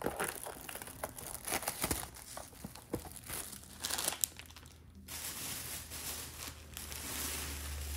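Plastic shrink-wrap on a trading-card blaster box crackling and tearing as it is ripped off by hand and crumpled, with a steady hiss over the last few seconds.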